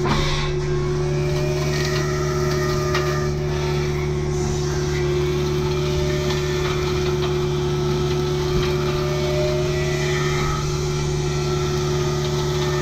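Kubota U55-4 mini excavator's diesel engine running steadily under load while driving a hydraulic brush cutter, a constant hum with a steady higher tone over it and a few brief cracks.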